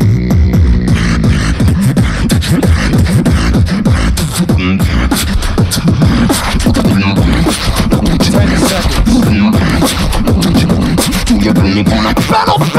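Two beatboxers performing together on amplified microphones. Rapid kick, snare and hi-hat sounds run over a wavering sung bass line, and a higher pitched vocal line comes in near the end.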